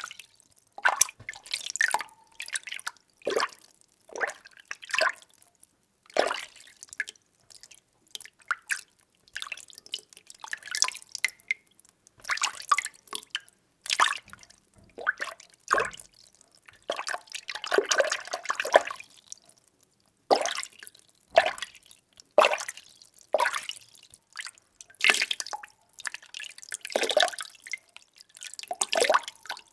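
Water being stirred by hand: irregular splashes and gurgles roughly once a second, some in quick clusters, with short quiet gaps between.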